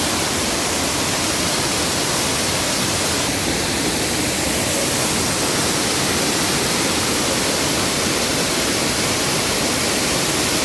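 Waterfall in Karura Forest: a steady, loud rush of falling water.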